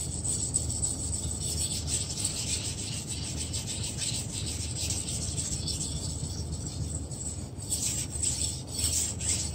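Steel knife blade being stroked back and forth across a whetstone, a continuous gritty grinding hiss that becomes several quicker, louder strokes near the end and then stops.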